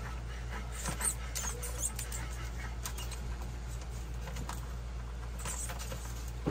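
Oracle cards being handled and shuffled: light scratchy rustling with a few soft taps and clicks, over a steady low hum.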